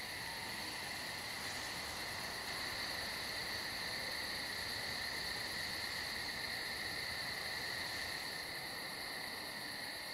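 Crickets chirring steadily, a continuous high trill with no breaks.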